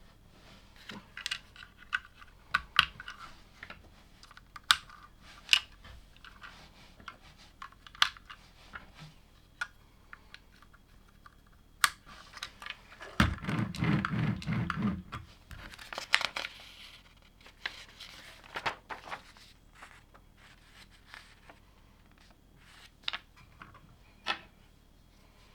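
Plastic LEGO bricks being handled and snapped together, with scattered sharp clicks. A little past halfway there are about two seconds of louder rustling and rattling of the pieces.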